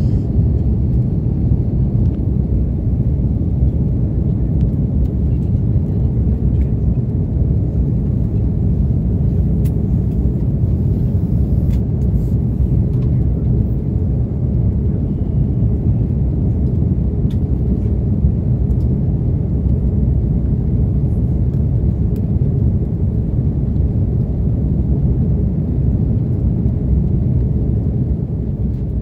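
Steady low cabin noise inside an Airbus A330-300 in flight: engine and airflow noise heard through the fuselage, with a few faint ticks.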